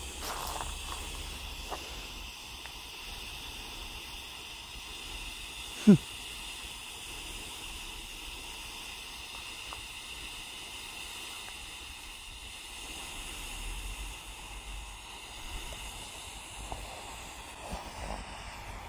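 Homemade smoke grenade burning on the ground, giving a steady hiss as it jets out white smoke. One brief, loud low thump comes about six seconds in.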